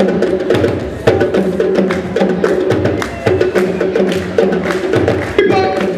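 Upbeat African dance music with percussion: wood-block-like clicks keep a steady beat over repeating pitched notes, with a short high pitched sound near the end.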